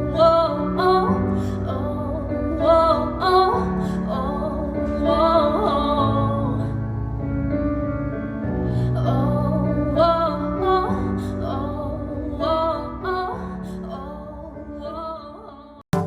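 A woman singing a slow, held melody with piano accompaniment. It breaks off abruptly near the end.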